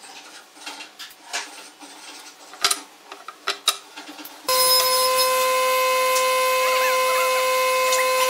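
Light knocks and clicks of pine blocks and a metal square handled on a wooden workbench. About halfway through, a loud, steady machine hum with a strong even tone starts abruptly and runs on.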